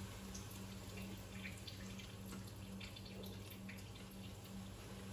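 Faint trickling and dripping of liquid into a stainless steel sink as a tin of sweetcorn is drained, with scattered small drips. A steady low hum runs underneath.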